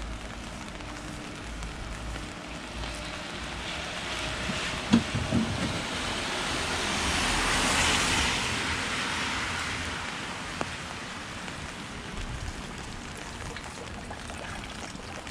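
Steady rain falling, with a vehicle's tyres hissing past on the wet road, swelling to a peak about eight seconds in and then fading. There are two low thumps about five seconds in.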